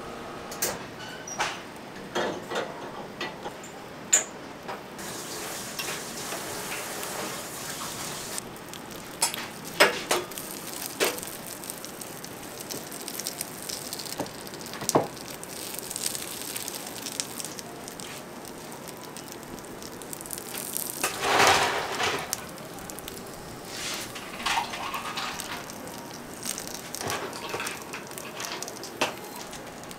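Batter and filling sizzling in hot bungeoppang (fish-shaped pastry) molds, a steady hiss broken by scattered metal clicks and knocks. A louder hiss swells up about two-thirds of the way through.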